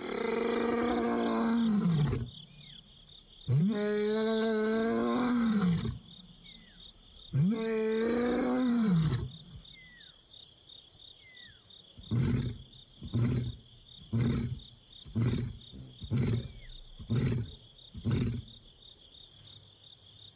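Young male lion roaring a full bout: three long, moaning calls followed by a run of about seven short grunts roughly a second apart. It is a long-range contact roar, calling for a missing companion. A steady high trill runs behind it.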